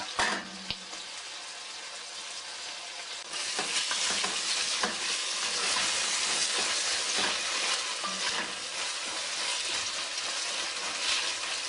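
Chopped young onions frying in oil in an enamel pot, sizzling steadily while being stirred with a wooden spoon; the sizzle grows louder about three seconds in. The onion is at the stage of turning glassy and starting to come apart.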